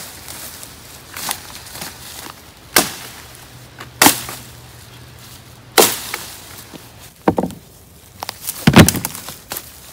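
Sharp woody chops and cracks, about five of them a second or two apart, the loudest near the end: the limbs of a freshly felled small tree being chopped.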